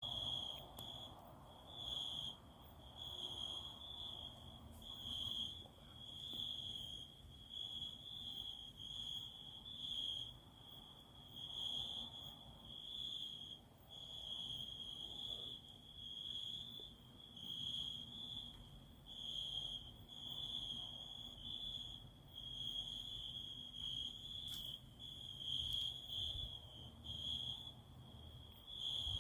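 A cricket chirping: a steady high-pitched note that pulses about once a second.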